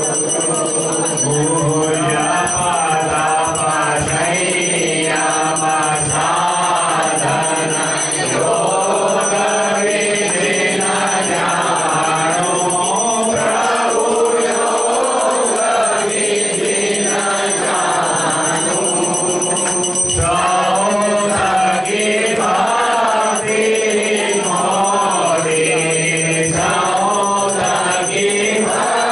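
A crowd of devotees singing a Hindu devotional hymn together, an aarti, without a break.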